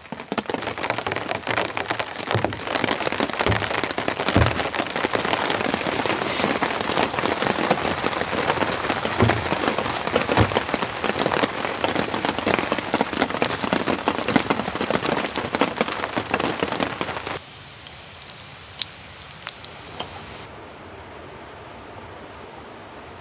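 Heavy rain falling, a dense hiss of many drops striking. About seventeen seconds in it drops abruptly to a much quieter rain.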